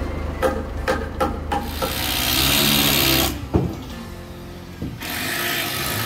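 Timber-frame carpentry work: several sharp knocks on wood in the first second and a half over a steady low engine hum. Then comes a loud stretch of rasping, scraping noise, and one more knock.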